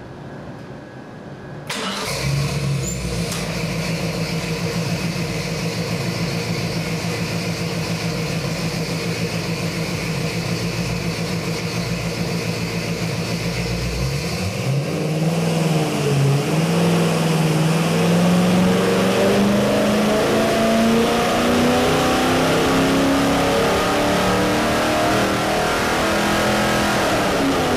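Chevy 350 small-block V8 crate engine with a Holley carburettor running on an engine dyno: it comes in abruptly about two seconds in and idles steadily, then from about halfway through makes a full power pull, its pitch rising steadily and getting louder as the revs climb to nearly 5,000 rpm, and drops off at the very end.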